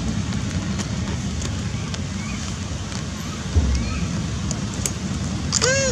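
Steady rain hiss with wind rumbling on the microphone. Near the end a macaque gives one short cry that rises and falls in pitch.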